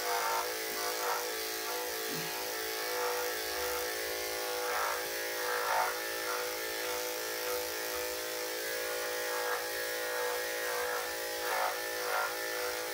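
Electric dog-grooming clippers buzzing steadily as they shave the fur on a dog's belly, with a few brief louder rasps where the blade works through the coat.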